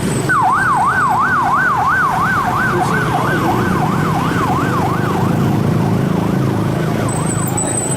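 Bus's electronic siren-style horn sounding a fast up-and-down wail, about three sweeps a second, which fades after about five seconds, over a steady engine rumble.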